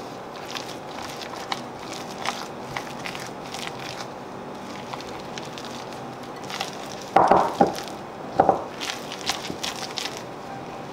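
A silicone spatula and a hand working crumbly meat-pie pastry dough in a glass mixing bowl: soft scraping and crunching with small ticks, and a few louder scrapes about seven and eight and a half seconds in.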